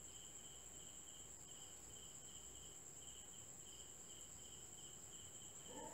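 Near silence with faint insects chirping: a steady run of short, evenly spaced chirps over a continuous high-pitched whine.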